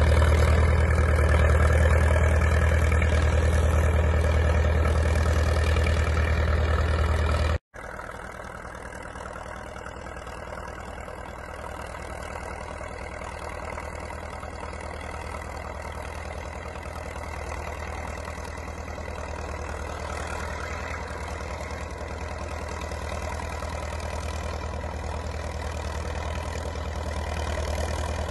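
International Harvester TD-6 crawler's diesel engine running steadily as it pushes a vee snow plow. After a sudden break about eight seconds in, the engine is quieter and heard from farther off, slowly growing louder.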